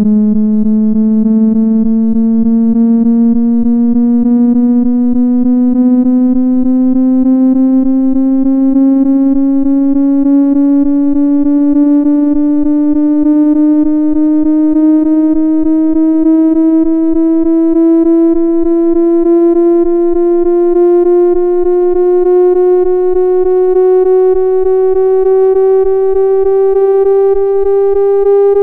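Computer-generated tone made from a cubic-function waveform: a buzzy synthetic tone with many overtones, rising slowly and steadily in pitch, climbing about an octave, at a constant loud level.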